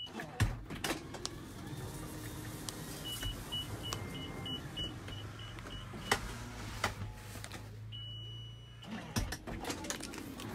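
Toyota Alphard's power sliding door worked from the remote key fob: the door motor hums steadily while the warning buzzer beeps rapidly, about four times a second. Near the end the motor stops after one longer steady beep, with a few latch clunks along the way, the loudest just after the start.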